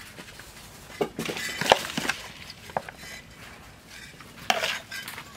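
A metal spoon scraping and clinking against a plastic bowl and a plate while wet salad is scooped and piled onto the plate. There is a cluster of scrapes and clicks about a second in and another short one near the end.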